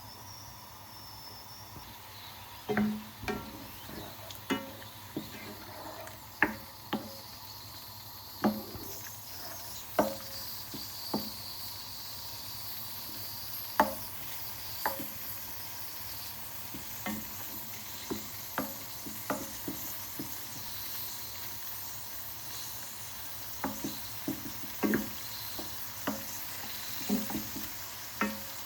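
A spoon knocking against a cooking pot at irregular intervals, roughly once or twice a second, as chicken, dal and spices are stirred, over a steady faint sizzling from the pot.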